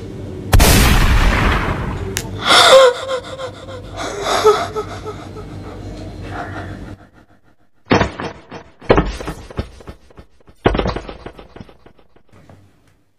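Sound-effect gunshot, a single loud boom about half a second in that rings out for a second or more, followed by a woman's scream. Near the end come three short, sharp sounds.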